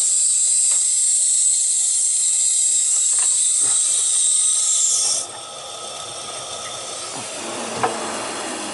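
Air hissing steadily out of a hot-water heating system's bleed or purge valve as the system is purged of air. The hiss stops abruptly about five seconds in, leaving a quieter steady rush, with one sharp click near the end.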